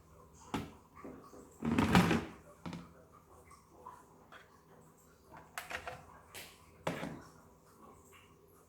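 Knocks and clunks of objects being handled and set down: a single knock, a louder scraping clunk about two seconds in, a quick run of clicks a little past the middle, and another knock soon after.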